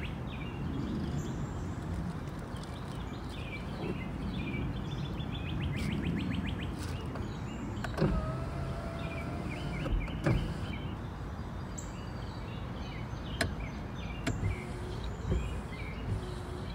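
Yuki Amy electric car's power window motor whining steadily for about two seconds as the door glass moves, with a switch click at the start and end, about halfway through. Birds chirp outside throughout.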